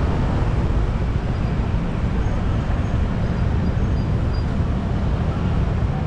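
Steady road traffic noise: a dense, even hiss and low rumble of vehicles with no distinct single events.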